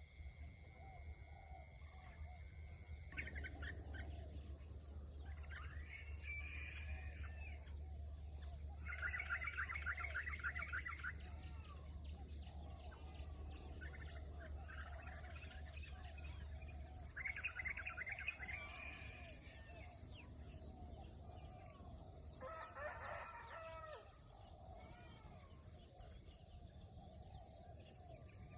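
Birds calling at intervals, including two rapid trilled calls that are the loudest sounds, over a steady high-pitched hiss and a low hum.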